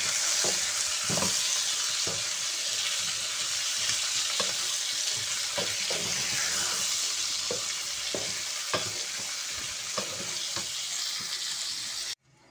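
Potato slices sizzling in hot oil in a non-stick wok, with a wooden spatula scraping and knocking against the pan as they are stirred. The sound cuts off abruptly near the end.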